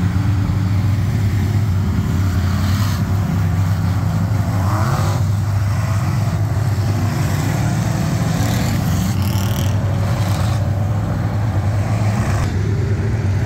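Engines of several pure stock dirt-track race cars running hard at race speed as the field goes by, a steady loud drone, with one engine rising in pitch about four seconds in.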